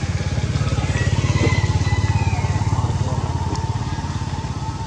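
A small engine running steadily with a fast low putter, growing a little louder about a second in and easing off towards the end.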